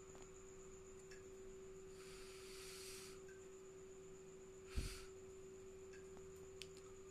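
Quiet background with a steady low hum and a faint, steady high whine above it, a short soft hiss about two seconds in, and a brief thump near five seconds.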